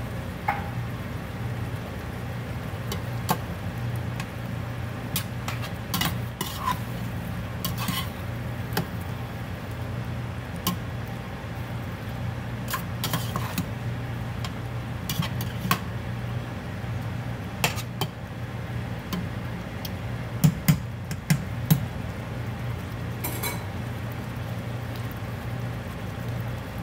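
A slotted spoon stirring pork in tomato sauce in a stainless steel pot, scraping and clicking against the pot's sides and bottom, with a few louder knocks about three quarters of the way through. A steady low hum runs underneath.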